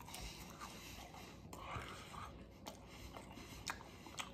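Quiet chewing of a fried onion ring, with a few short crunches.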